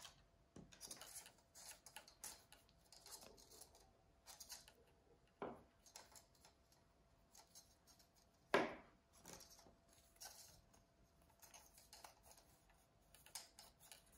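Faint rustling and light taps of paper cutouts being handled and pressed down onto card by hand, with a couple of slightly louder brushes near the middle.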